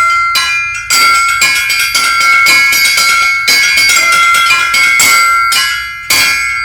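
Offcuts of railway rail struck like bells in a quick ringing rhythm, roughly two or more clanging strikes a second. Each strike leaves a sustained high metallic ring that overlaps the next. The last strike comes near the end and its ring fades away.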